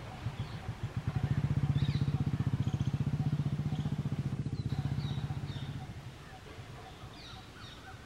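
A motor vehicle engine passing by, a low rapid putter that swells about a second in and fades away by about six seconds. Short bird chirps sound on and off over it.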